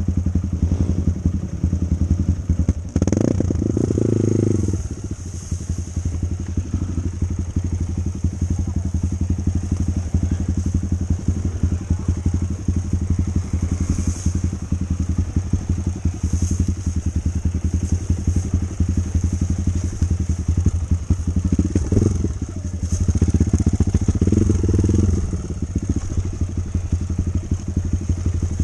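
Small single-cylinder four-stroke Kawasaki KLX dirt bike engine running at low revs on a trail. It picks up in a short rev about three seconds in, and again for a few seconds near the end.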